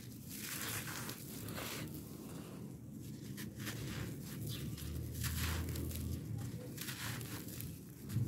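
Dry, compacted red dirt slabs crushed and crumbled between bare hands: gritty crunching in irregular bursts, with loose grains trickling down onto the dirt pile.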